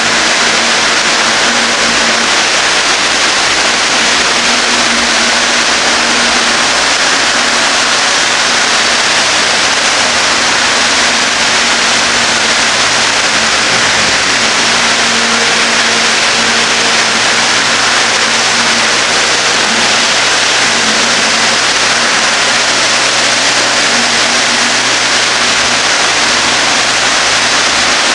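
Milking-machine vacuum system running: a loud, steady hiss of rushing air, with a faint hum that comes and goes.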